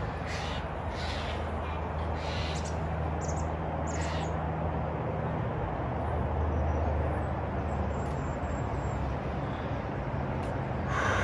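A few short crow caws in the first half, over a steady low outdoor hum.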